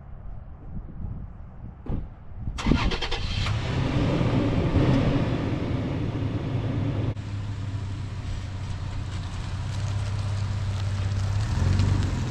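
Toyota FJ Cruiser's 4.0-litre V6 starting about two and a half seconds in, a short crank and then catching, and settling into a steady idle. It gets louder near the end as the truck pulls away.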